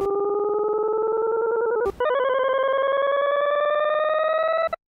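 Desmos graphing calculator's 'Hear Graph' audio trace sounding a graph as a buzzy electronic tone with a fast flutter, gliding slowly upward in pitch as the plotted value climbs. About two seconds in it breaks with a click and resumes a little higher and brighter, then cuts off suddenly near the end.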